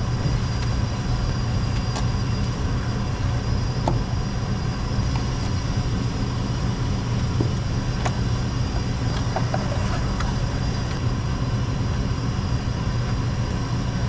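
Steady low machine drone, with a few light clicks and taps as the old power supply unit is handled and its mounting screws are worked on.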